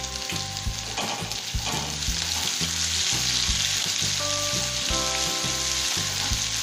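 Chopped onion frying in hot mustard oil in an aluminium kadai, with a steady sizzling hiss. A wooden spatula is stirring and scraping through the pan.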